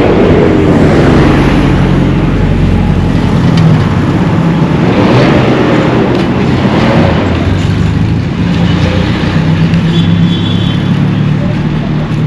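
Road traffic: a steady engine drone, with vehicles passing close by twice, swelling and fading about a second in and again midway.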